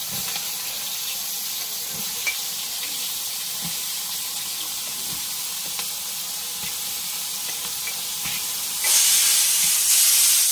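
Food frying in hot oil: a steady sizzle with scattered small pops. About nine seconds in, the sizzle suddenly grows louder for the last second and a half.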